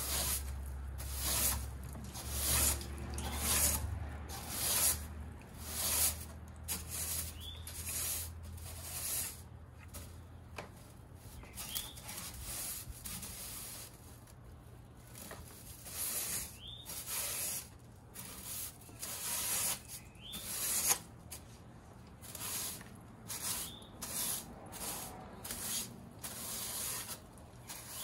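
Straw broom sweeping loose potting soil across wooden deck boards: short brushing strokes, about one a second, quieter for a few seconds in the middle.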